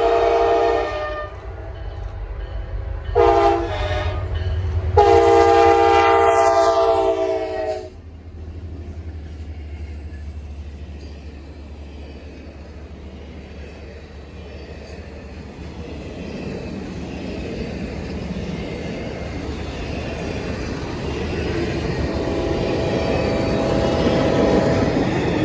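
CSX F40 diesel locomotives sounding a chime air horn: a long blast ending about a second in, a short blast about three seconds in, then a long final blast whose pitch sags as the lead unit goes by. This is the closing part of a grade-crossing signal. The train then rolls past with a steady diesel and wheel rumble that grows louder again near the end.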